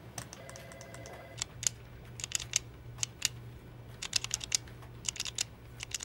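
Light, sharp clicks in quick irregular runs, like fingers typing on a computer keyboard, over a low steady background hum.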